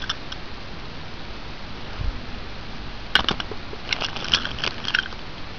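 Hands handling a small clear plastic box and bag of pins: a sharp click about three seconds in, then a run of light plastic crinkles and taps, over a steady background hiss.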